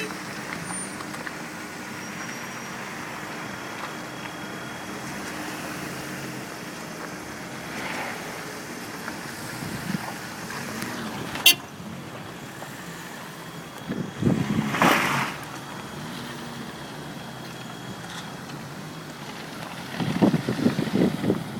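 Street traffic running steadily past. There is one sharp knock about halfway through, and two louder rough spells, one about two-thirds of the way in and one at the end, as vehicles pass close.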